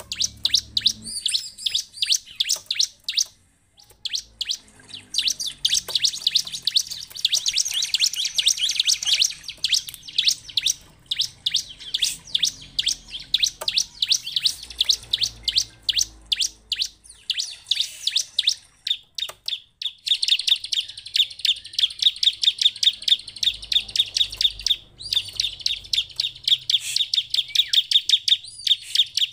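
Bar-winged prinia (ciblek) calling in long, fast strings of sharp high chirps, several a second, broken by a few short pauses. It is an excited, emotional ciblek call of the kind played as a lure (pancingan) to set other prinias singing.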